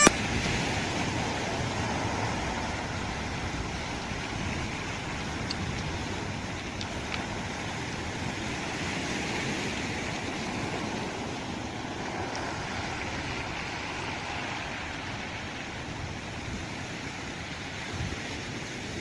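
Small sea waves washing steadily onto a pebble shore.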